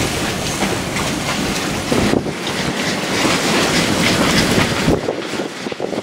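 Strong storm wind buffeting the microphone over rough, choppy sea water. The heavy low rumble of the gusts drops away suddenly about five seconds in, leaving lighter wind and water noise.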